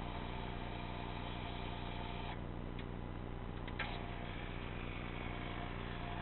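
Electric linear actuator of a swing gate running with a steady motor hum and whine as it drives the leaf through a pantograph arm; the whine cuts out about two seconds in, a sharp click follows a little past the middle, and the whine comes back faintly near the end.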